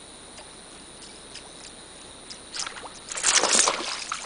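A small traíra striking at a topwater stick bait on the surface of a creek: a burst of splashing begins about three seconds in and goes on in loud, broken sloshes.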